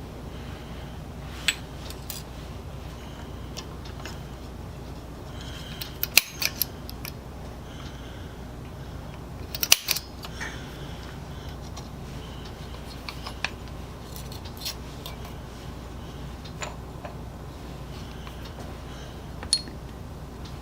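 Occasional light metallic clinks and taps of steel parts and hand tools being handled, over a steady low hum.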